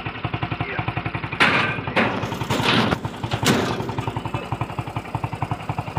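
Homemade hauler's 110cc Honda Revo Absolute motorcycle engine idling with an even, rapid putter, while oil palm fruit bunches are thrown into its steel cargo bed, landing with several loud thuds and rattles between about one and a half and three and a half seconds in.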